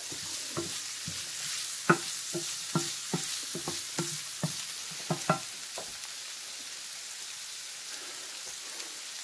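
Diced red onions sizzling in hot fat in a skillet, with a wooden spoon scraping and knocking against the pan as they are stirred; the stirring stops about six seconds in, leaving a steady sizzle.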